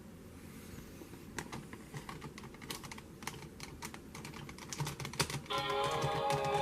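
Quick, irregular clicking like typing on a keyboard. About five and a half seconds in, a sustained musical tone with several harmonics starts.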